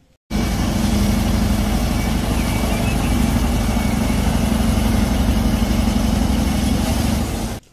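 Large crawler bulldozer's diesel engine running steadily with a deep rumble, starting abruptly and cutting off just before the end.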